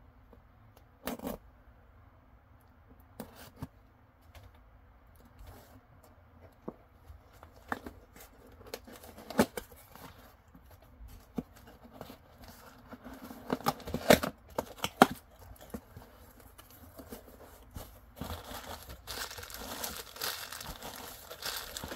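Cardboard shipping box being opened by hand: scattered scrapes, taps and tearing of packing tape and cardboard, with a cluster of sharp cracks a little past the middle. Over the last few seconds, crumpled packing paper crinkles steadily as it is pulled out.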